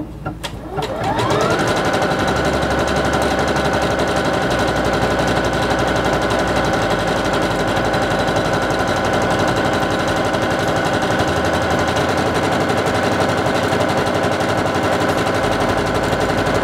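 Singer Confidence 7640 electronic sewing machine sewing a satin stitch: the motor winds up with a rising whine over the first second or so, then runs at a steady fast speed with a rapid needle rhythm.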